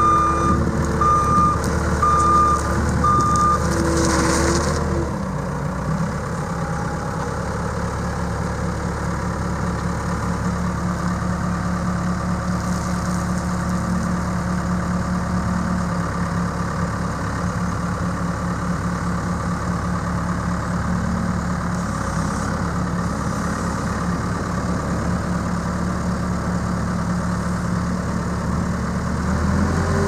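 Case 85XT skid steer's four-cylinder diesel engine running at raised throttle, with four short beeps in the first few seconds. About five seconds in it drops to a steady idle, then revs up again near the end.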